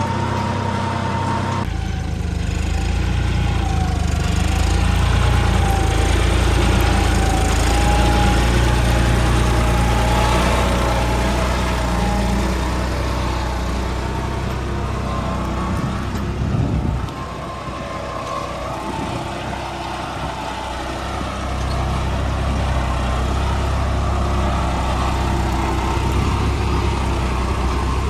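John Deere 5310 tractor's three-cylinder diesel engine running steadily under load as it pulls a two-bottom reversible mouldboard plough deep through wet, heavy soil. The engine note shifts abruptly twice, once near the start and again about two-thirds through.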